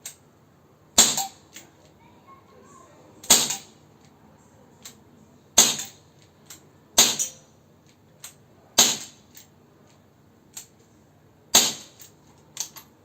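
Gamo PR-776 CO2 air pistol firing six single shots a second or two apart, each a sharp crack, with fainter clicks between the shots. The shooter thinks the CO2 capsule is nearly spent.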